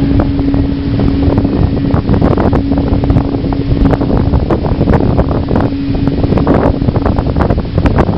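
Wind buffeting the microphone hard, over the steady hum of a ship's engine.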